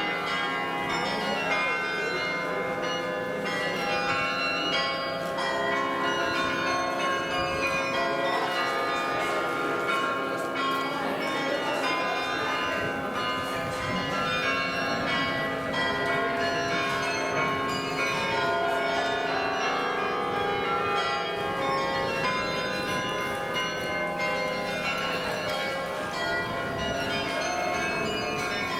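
The bells of St Peter's church in Leuven ringing continuously, many bells of different pitches sounding and overlapping at once.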